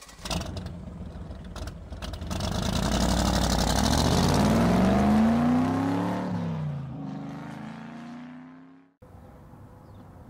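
Intro sound effect: a whoosh that swells for about five seconds, with an engine-like tone rising and then falling away like a vehicle passing by. It fades out about nine seconds in, leaving faint steady outdoor background.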